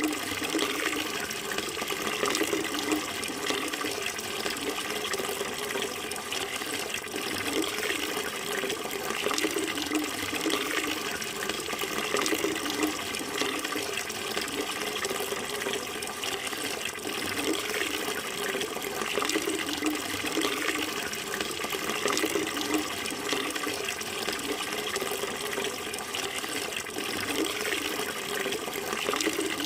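Running water flowing steadily, a continuous rushing sound that does not let up.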